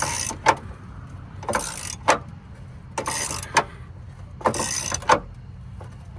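Socket ratchet wrench being worked back and forth on a tight motor mount bracket bolt: four rapid ratcheting stretches about every second and a half, each ending in a sharp click. The bolt is seized tight and only slowly loosening.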